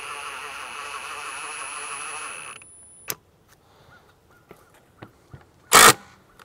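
Cordless impact driver running, hammering a screw into a 2x4 of the hive stand, then stopping about two and a half seconds in. A few small clicks follow, then a brief, louder noise near the end.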